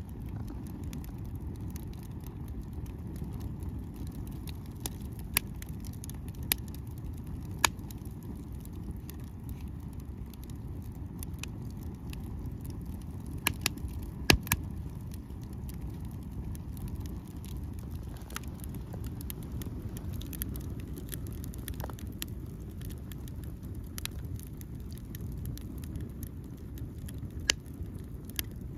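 Wood fire burning on a fire grate behind a metal windscreen: scattered sharp pops and crackles from the burning logs every second or two, with a cluster of louder pops about halfway through, over a steady low rumble.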